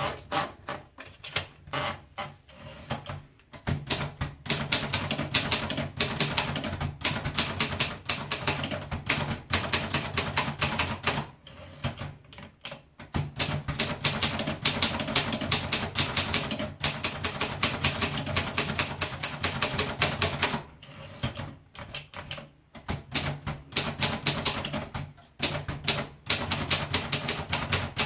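Olympia Progress typewriter being typed on: fast runs of key strikes in long bursts, with a couple of short pauses between them.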